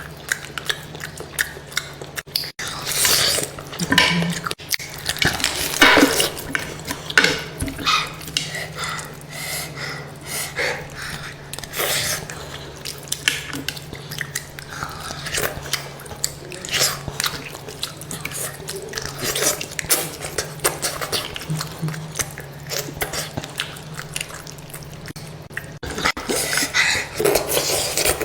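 Close-up eating sounds: a person chewing and biting food, a dense run of irregular wet clicks and smacks, over a steady low hum.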